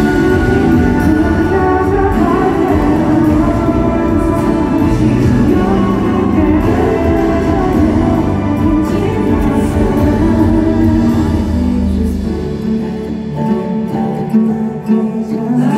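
Male vocalist singing a slow pop ballad live into a handheld microphone over backing music through a concert PA. The deep bass drops out about thirteen seconds in.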